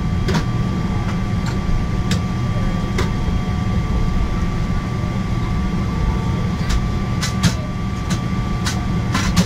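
Steady cabin noise inside a Boeing 777-300ER on the ground: an even low rumble with several thin, steady whining tones over it. About ten sharp clicks are scattered through it.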